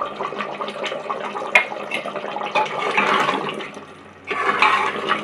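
Mutton in yogurt gravy bubbling in an aluminium pressure-cooker pot on a medium flame, while a steel ladle stirs and scrapes through it, clinking against the pot a few times. The stirring grows louder near the end.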